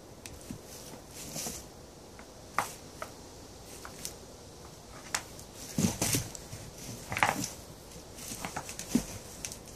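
Goats jostling head to head in straw bedding: irregular knocks and clicks with rustling straw, and a few louder thumps about six and seven seconds in.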